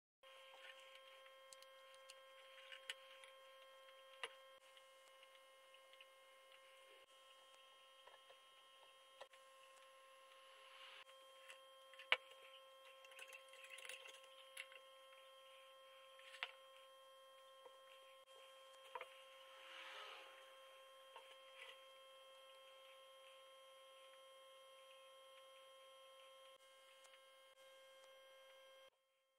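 Faint steady electrical hum, with a few light clicks and taps scattered through it.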